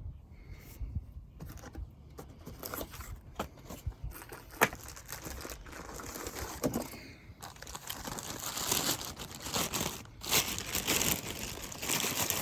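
Packaging around a new wheel bearing hub assembly being crinkled and torn open: irregular rustling and crackling that gets busier after the first couple of seconds, with one sharper click about four and a half seconds in.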